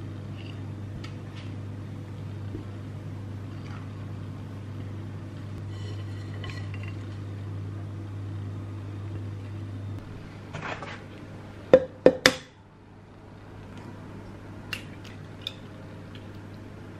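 Batter scraped and poured from a glass mixing bowl with a silicone spatula, soft scraping over a low steady hum. About two-thirds through, three sharp clinks of glass dishware come in quick succession, followed by a few faint taps.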